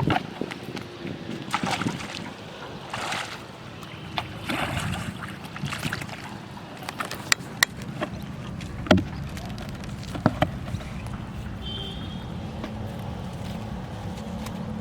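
Water sloshing and splashing, with scattered sharp knocks and clicks, the loudest about nine seconds in.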